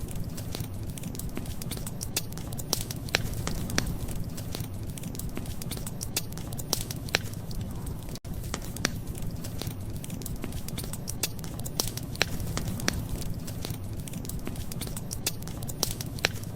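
Wood fire crackling: frequent irregular sharp pops and snaps over a steady low rumble, with a momentary dropout about halfway through.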